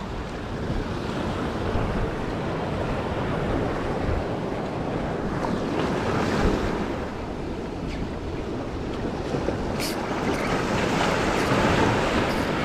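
Sea surf breaking and washing against jetty rocks, a steady rushing, with wind buffeting the microphone. A brief click about ten seconds in.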